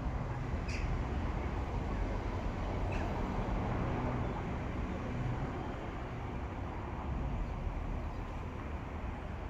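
Outdoor town street ambience: a steady low rumble of background noise, with two short high chirps about a second in and again around three seconds in.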